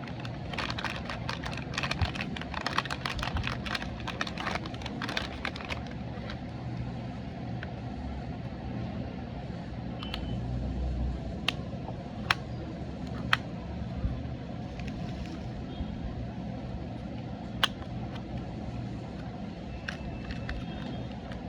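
Plastic packaging being handled and crinkled: dense crackling for about the first six seconds, then a few single sharp clicks over a steady low hum.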